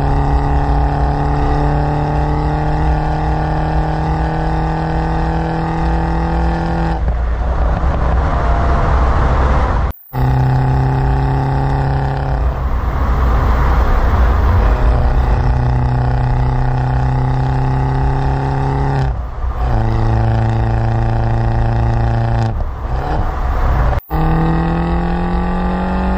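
John Cooper Works Mini engine and exhaust under way, a loud steady engine note held or climbing slowly in pitch over long pulls. The note drops away into a rougher, noisier sound several times between pulls.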